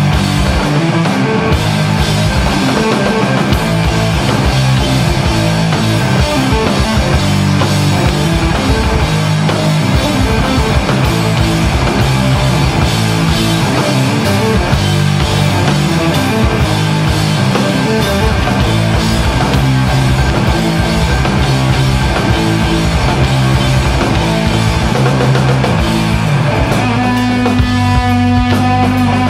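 A live heavy rock trio of distorted electric guitar, bass guitar and drum kit playing a loud instrumental riff. Near the end the drumming drops away and a held chord rings out.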